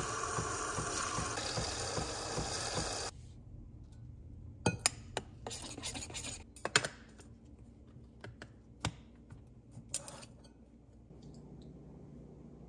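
A coffee machine's milk frother dispensing hot frothed milk into a tumbler, a steady whirring hiss that cuts off suddenly about three seconds in. Then a spoon stirring in the metal tumbler, scraping and giving several sharp clinks against its side.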